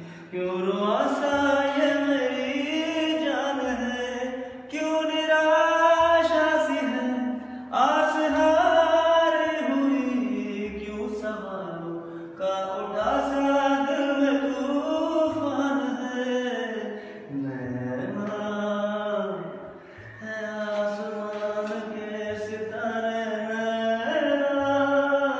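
A man singing a slow song melody in long, drawn-out, ornamented notes, with short breaks for breath.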